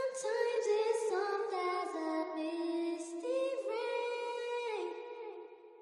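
Singing: a high voice holds and glides between notes, with no beat underneath, and fades out near the end.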